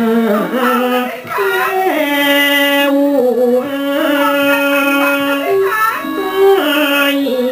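Thai classical music: a high melody of long held notes linked by short bending ornaments, with no break.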